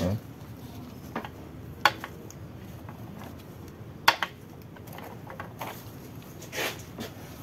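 Metal clutch-pack plates of a TH350 automatic transmission clinking as they are handled and lifted out by hand. There are scattered single clicks, the first with a dull knock, and a quick pair about four seconds in, over a low steady background noise.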